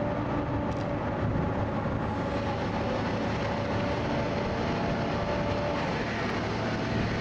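Trawl winch and deck machinery of a research trawler running steadily, a low drone with a thin steady whine over it, as the trawl with its catch is hauled aboard.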